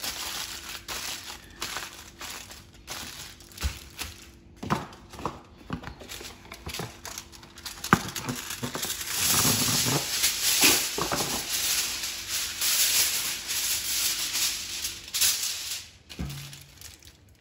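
Aluminium foil crinkling as a foil parcel is folded and pressed, then a length of foil pulled from its box roll, torn off and smoothed flat, the rustling loudest and most continuous in the second half.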